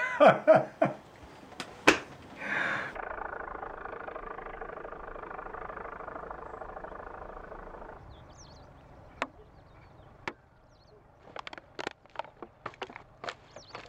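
A man laughing briefly at the start, then a steady noise of unclear source for about five seconds that stops suddenly, then scattered crunching footsteps across rubbish-strewn ground near the end.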